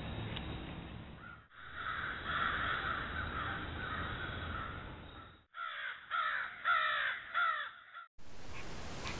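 A crow cawing about four times in quick succession, over the steady hiss of a trail camera's microphone.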